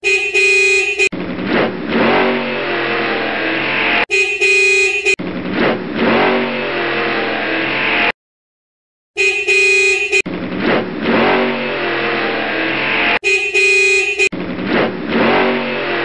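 A dubbed sound effect repeats four times: a vehicle horn honks for about a second, then a vehicle engine runs for about three seconds. There is a short break partway through.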